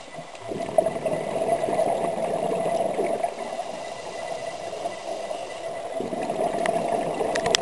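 Scuba regulator exhalation heard underwater: a rush of gurgling bubbles for about three seconds, a quieter pause, then the next breath out starting about six seconds in.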